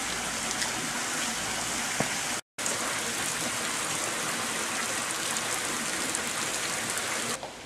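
Steady hiss of water, broken by a brief dropout a couple of seconds in and dropping away sharply near the end.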